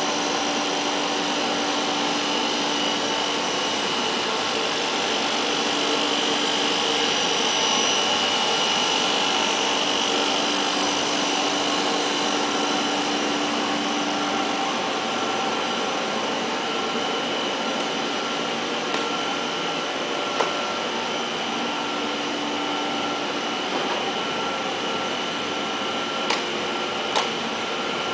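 PVC foam board extrusion line running: a steady mechanical hum and hiss with a few held tones, and a few sharp clicks in the second half.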